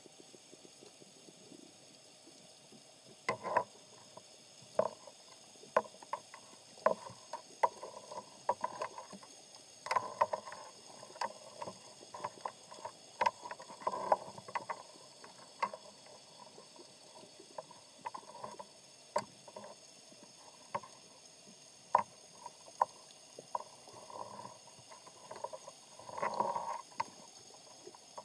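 Irregular muffled knocks and clunks, picked up from inside an underwater camera housing: scattered single taps with short busy clusters, the densest near the end.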